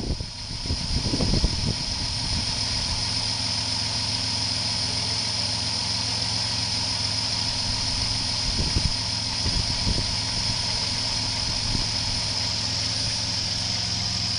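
2004 Dodge Caravan's 3.8-litre V6 idling steadily on an engine test, with a steady high hiss over the low engine note; the engine is judged to sound good. A few light knocks come in the first second or two.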